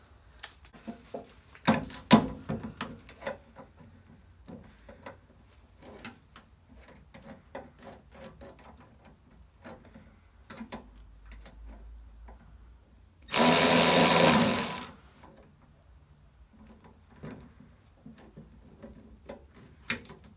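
Fastening caster bolts on a steel tool cart: scattered small clicks and knocks of a hand ratchet and tools, with one loud run of a cordless power driver lasting about a second and a half, about two-thirds of the way through.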